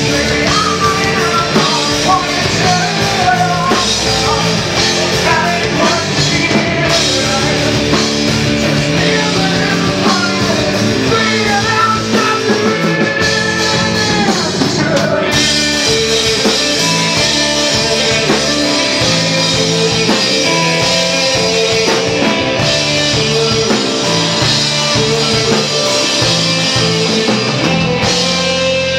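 Rock band playing live: distorted electric guitars over a drum kit, with the drums dropping out right at the end and a guitar note left ringing.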